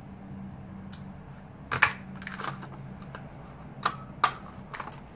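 Handheld scalloped-circle paper craft punch cutting through cardstock: a sharp snap about two seconds in, then several lighter plastic clicks as the punch is handled, over a faint steady low hum.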